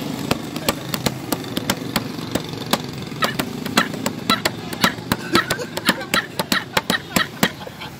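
Sharp rhythmic taps, about three a second and coming closer together in the second half, over a steady low hum of street traffic.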